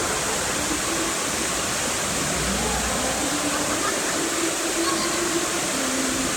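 Steady rush of water in an indoor waterpark wave pool, with the faint voices and shouts of people in the pool.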